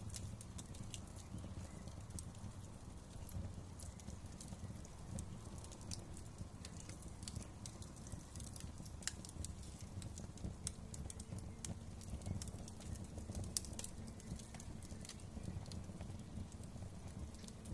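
Wood fire crackling in a fireplace: many irregular sharp pops and snaps over a steady low rumble of the burning fire.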